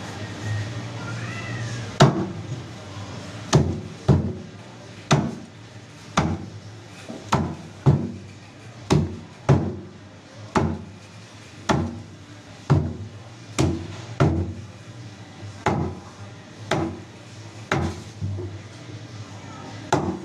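Heavy meat cleaver chopping a whole grouper crosswise into steaks on a thick wooden chopping block: sharp chops about once a second, starting about two seconds in.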